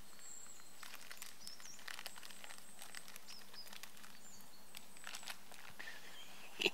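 Paper wrapping crinkling and rustling faintly as a food packet is unwrapped by hand, with a few faint bird chirps.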